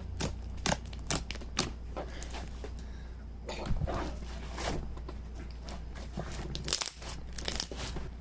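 Textured orange-juice slime being squished and stretched by hand, making irregular crackling pops that sound kind of sizzly, thought to come from the pulp-like pieces mixed into it.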